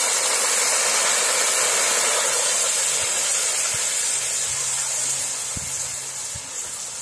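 Lemon juice poured into a pan of hot tempering oil, sizzling: a loud, steady hiss that slowly dies down toward the end.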